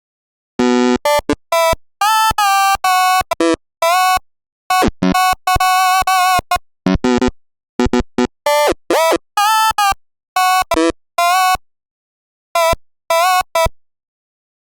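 A sampled sound effect pitched into short synthetic-sounding notes, playing a choppy melody. Each note starts and cuts off abruptly with dead silence between, in quick clusters and a few longer held notes, stopping about a second before the end.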